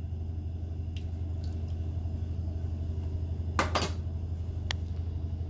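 A few light knocks of a jug against a mortar as ngo is poured into palm oil: one faint click about a second in, a louder pair of knocks around three and a half seconds, and one more shortly after. A steady low hum runs underneath.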